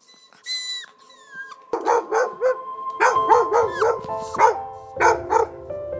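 A dog whining with high yelps, then barking in quick short barks, two or three a second, over background music with held notes.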